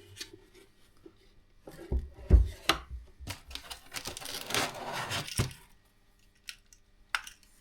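Parts and packing material being handled while unboxing: a dull thud and a few knocks, then a couple of seconds of rustling and scraping, with scattered clicks.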